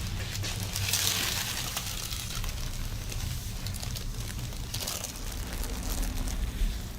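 A person breathing out slowly twice, a soft drawn-out hiss each time, with faint rustling over a low steady hum.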